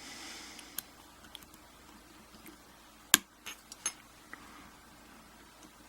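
Small metal clicks and clinks as tools work on a pin-tumbler lock cylinder being taken apart. There is one sharp click about three seconds in, followed by a few lighter ones.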